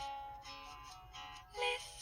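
Samsung SPH-W7100 phone message alert tone: a short synthesized melody of held, chiming notes, with a louder note near the end.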